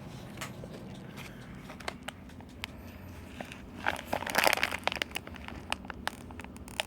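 A noise-making toy being handled, crinkling with scattered small clicks, loudest in a burst about four to five seconds in.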